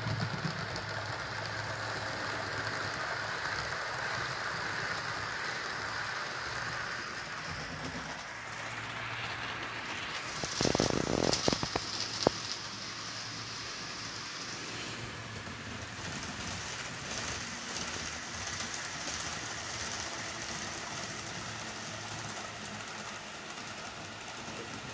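HO scale model train running on the track of an old Atlas layout: a steady rolling rattle of wheels on rail, with a brief louder clatter a little under halfway through.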